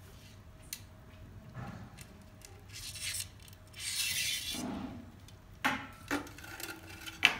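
Finned metal light bars of a bar-style LED grow light being handled and fitted to its driver box: rubbing and scraping noises through the middle, then three sharp metal clicks and knocks in the last two seconds, the first two with a short ring.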